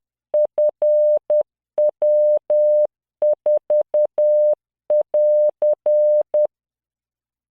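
Morse code practice tone of about 600 Hz, generated by LearningMorse software and keyed at 10 words per minute, sending F, W, 4 and then the AR end-of-message prosign (.-.-.). The tone stops about six and a half seconds in.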